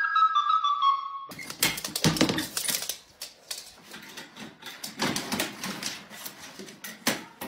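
A recorder's tune cuts off about a second in, followed by a run of sharp clicks, knocks and clattering from a plastic pet carrier with a wire door, with a small dog at it.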